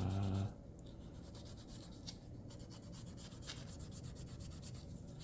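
Steady hand rubbing on walnut revolver grips as the old finish is worked off, with a couple of faint ticks.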